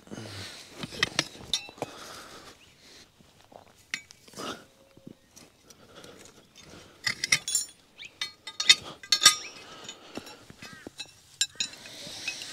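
Steel bar prying and digging at a buried dog-trap stake: sharp metal clinks and scraping, with a run of loud, ringing clinks past the middle.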